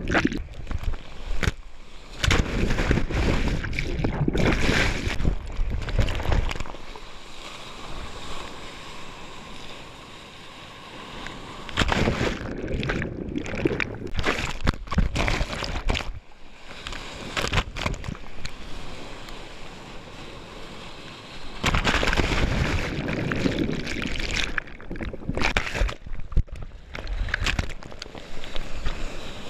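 Ocean water sloshing and surf rushing, coming in loud surges with quieter stretches between.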